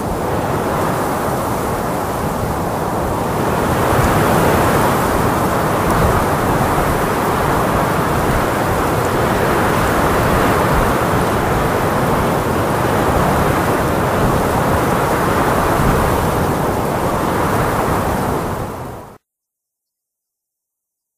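Strong wind blowing as a steady rushing noise that swells a little about four seconds in, then fades quickly near the end and drops to silence.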